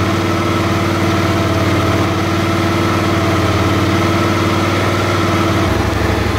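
Suzuki DL650 V-Strom's V-twin engine running with the throttle eased open, revs held steadily a little above idle and dropping back near the end. It pulls cleanly with no stumble or sneeze: the low-throttle misfire is cured now that the faulty, under-pressure fuel pump has been replaced.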